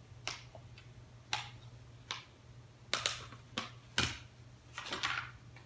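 Plastic food packaging crinkling and snapping as a wrapped food container is unwrapped and its lid peeled off: about seven or eight short, sharp crackles at irregular intervals.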